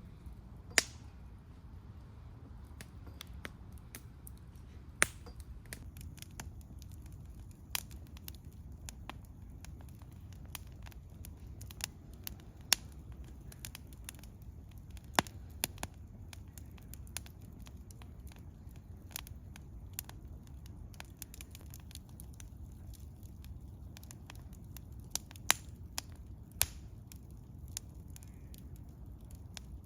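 Wood campfire crackling, with irregular sharp pops a second or a few apart, some much louder than others, over a steady low rumble.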